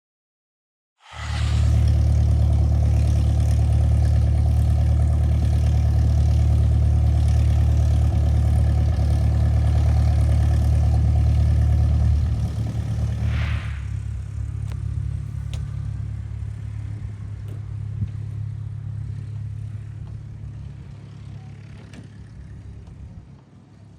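Cessna 172's piston engine running steadily at high power, starting abruptly about a second in; about halfway through its note changes and the sound drops, then fades away gradually.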